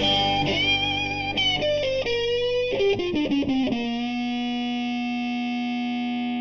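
Outro of a Thai pop-rock song: an electric guitar with effects plays a short run of notes, then a final chord rings and is held about four seconds in, closing the song.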